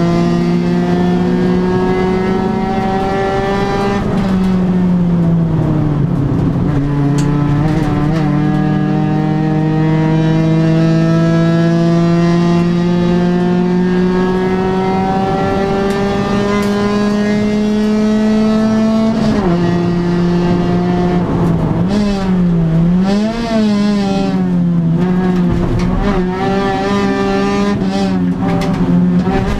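A 1997 Honda Civic 1.5's four-cylinder engine, heard from inside the cabin of the race car at full race pace. Its revs climb slowly through long pulls. They drop sharply about four seconds in and again near twenty seconds, rise and fall unevenly for a few seconds, then climb again near the end.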